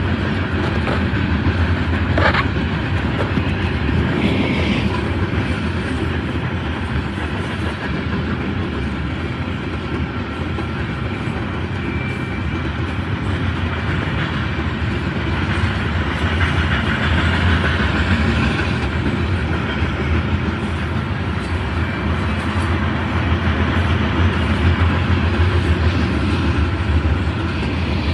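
Grain train's covered hopper cars rolling past: a steady rumble and clatter of steel wheels on the rails, with one sharp knock about two seconds in.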